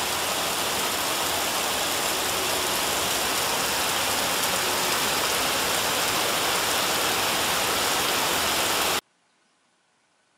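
Heavy rain pouring steadily, a dense even hiss; it cuts off abruptly about nine seconds in, leaving near silence.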